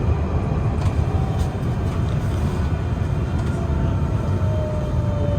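Alstom Citadis 305 tram running, heard on board: a steady low rumble of wheels on rail with a few faint ticks. From about a second in, a faint whine slowly falls in pitch.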